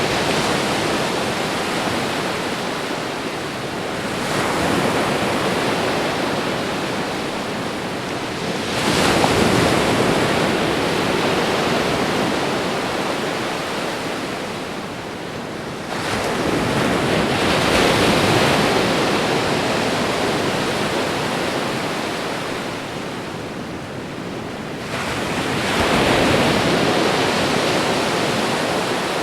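Ocean waves washing onto the shore: a steady hiss of surf that swells suddenly four times, each wave slowly fading away before the next one arrives.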